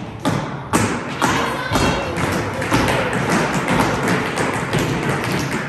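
Tap shoes striking a hard studio floor in a run of sharp, rhythmic taps and thuds, with music playing underneath.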